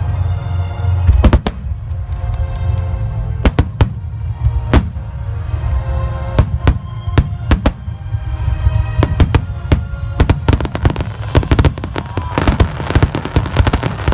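Fireworks shells bursting in a rapid series of sharp bangs, over music with sustained notes. From about eleven seconds in, the bangs thicken into a dense crackling.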